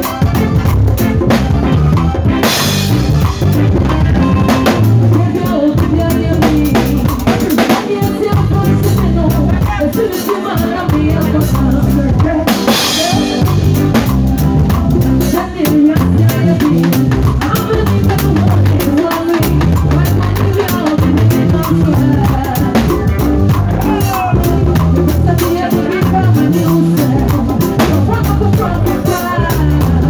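Live band music driven by an acoustic drum kit playing a busy groove of snare, rimshots and bass drum, with cymbal crashes about two and a half and twelve and a half seconds in.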